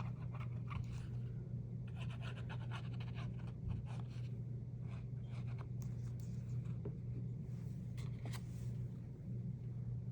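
Paper being handled and pressed down on a journal page: scattered rustles, scrapes and light taps in short bunches, over a steady low hum.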